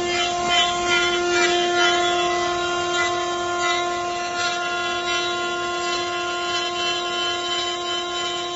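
CNC router spindle running with a steady high whine, and an irregular rasping noise over it that comes and goes.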